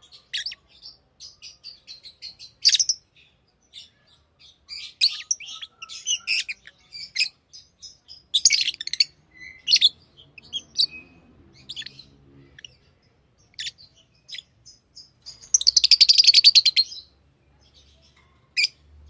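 Pet lovebirds chirping: short, sharp, high chirps come in scattered bursts, and near the end a fast chattering trill lasts about a second and a half, the loudest part.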